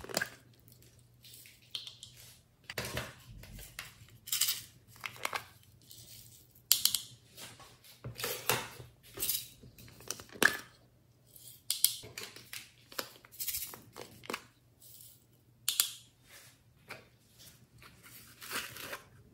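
Small plastic novelty containers being handled and pried open by hand: irregular plastic clicks, snaps and scrapes, many short sounds at uneven intervals.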